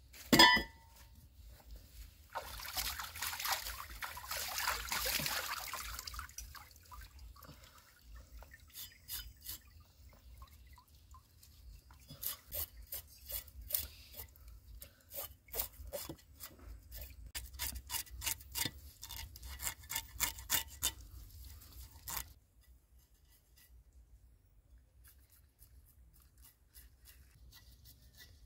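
River water splashing and sloshing as hands work in it at the bank. A loud splash comes right at the start, then a few seconds of steady splashing, then a run of quick short splashes and rubbing strokes that stops about three quarters of the way through, leaving only faint background.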